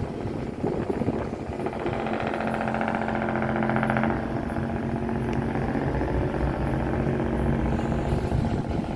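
Ship's diesel engine running with a steady hum, heard from the ferry's deck. A louder buzzing engine note is added from about two seconds in and cuts off suddenly about four seconds in.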